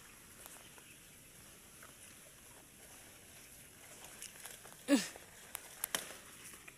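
Taro leaves and stalks rustling as a hand gathers taro shoots. About five seconds in there is a short squeak that slides down in pitch, followed by a few sharp snaps.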